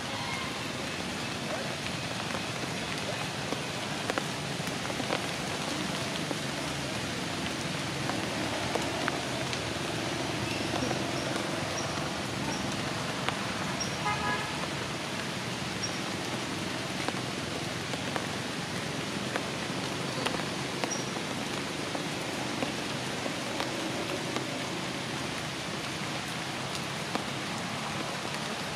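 A steady, even hiss of outdoor ambience, rain-like, with a few faint high chirps and small clicks over it.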